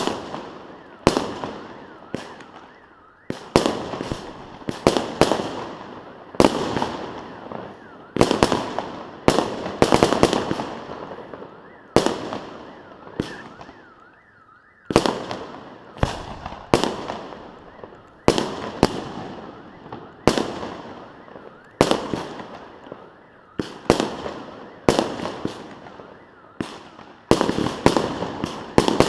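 Fireworks display: shells bursting one after another, a loud bang about every second, each with an echoing, crackling tail, and a brief lull about halfway through.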